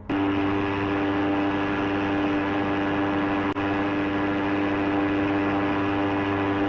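A ship's horn sounding one long, steady blast.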